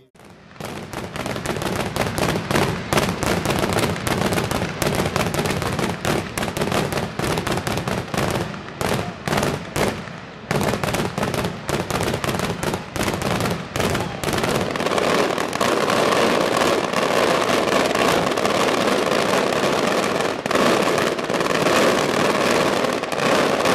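Traditional Maltese daytime fireworks: aerial shells bursting in a rapid, continuous barrage of bangs and cracks. The bursts start just after the opening moment and thicken into a denser crackle about two-thirds of the way through.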